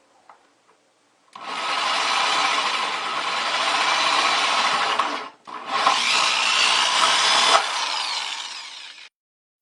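Power drill with a hole saw cutting through a plastic bucket wall. It runs in two long stretches with a short pause a little past the middle, then stops.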